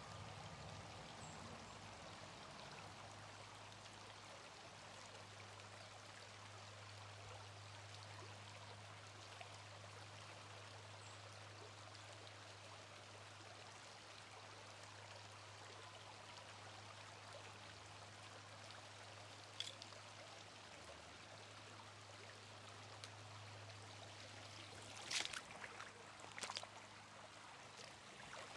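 Creek water flowing in a faint, steady rush. A low steady hum runs under it through most of the stretch, and a few sharp clicks and knocks come near the end.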